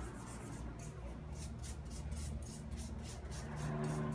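Small hand brush scrubbing a laryngoscope blade coated in disinfectant: a steady run of short scratchy back-and-forth strokes.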